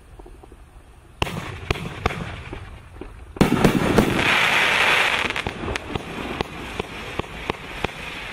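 30-shot consumer fireworks cake firing: a sharp report about a second in and a few more shots, then a loud rushing burst lasting over a second, followed by a steady string of separate pops, roughly one or two a second.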